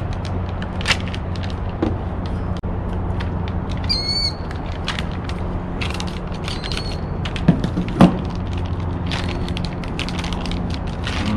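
Bike parts and packaging being handled: scattered clicks, knocks and rattles, with a short squeak about four seconds in, over a steady low hum.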